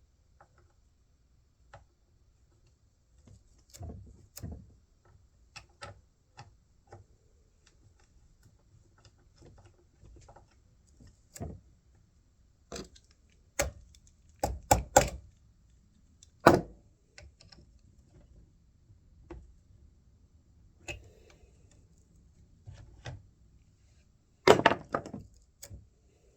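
Irregular metal clicks, taps and clanks of hand tools working on a chainsaw's bar and chain as the chain tension is loosened. There is a cluster of sharp clanks in the middle and another near the end.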